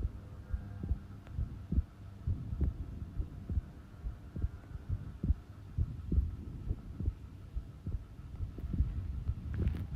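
Human heart beating at rest: slow, even low thumps about once a second over a steady low hum. A normal resting heartbeat.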